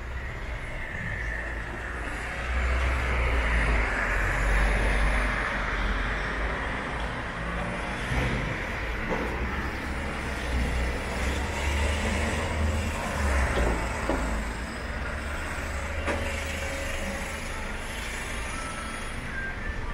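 Road traffic on a city street: motor vehicles driving past with a steady low engine and tyre rumble, loudest a few seconds in.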